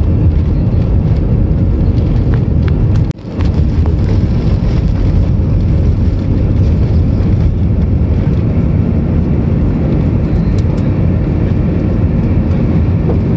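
Airbus A320-200's CFM56-5B engines at takeoff thrust, heard inside the cabin during the takeoff roll: a loud, steady rumble. It cuts out for an instant about three seconds in.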